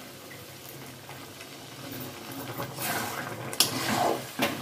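Hot water poured from a steel mug into a kadai of simmering curry, a steady gentle pour. From about three seconds in, a spatula stirs the thick curry and scrapes against the metal pan, with a few sharp scrapes near the end.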